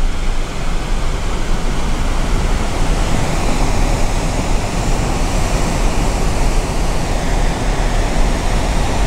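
Steady roar of rain-swollen waterfalls in flood, a loud rushing of falling water that holds even throughout.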